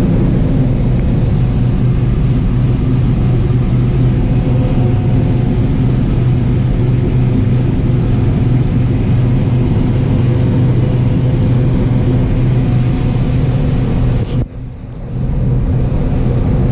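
Steady drone of a John Deere 9570 combine running under harvest, heard from inside the cab. It briefly drops away near the end.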